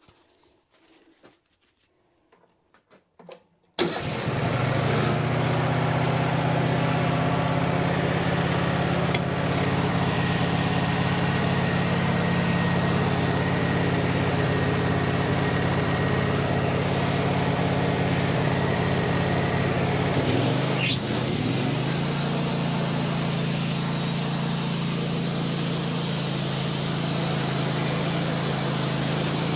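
Wood-Mizer LT15 sawmill's gasoline engine starting up about four seconds in and running steadily. About twenty seconds in its note dips briefly and settles, and a steady hiss rises over it.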